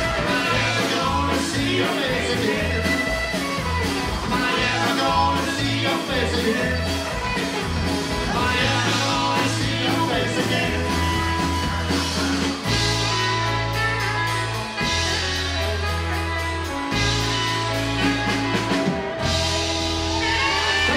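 Live rockabilly band playing an instrumental break: a saxophone solo over strummed acoustic guitar, bass and drums. About halfway through, the bass switches from a running line to long held notes.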